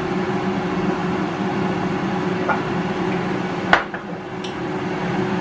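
Moulinex air fryer's fan running steadily as it preheats. A metal spoon gives one sharp clink against the bowl a little before four seconds in, after a fainter tap about halfway.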